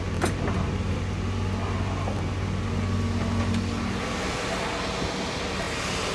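A loud, steady, low mechanical hum from outside. About four seconds in the hum drops away and a broad rushing hiss remains.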